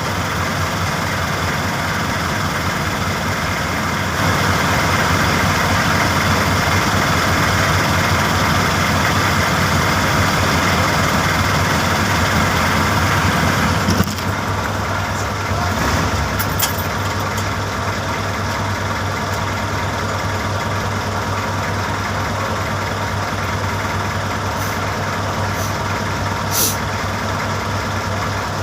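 Vehicle engine that is belching smoke, idling steadily; it runs louder from about four seconds in, then drops back suddenly about fourteen seconds in, with a few light clicks later on.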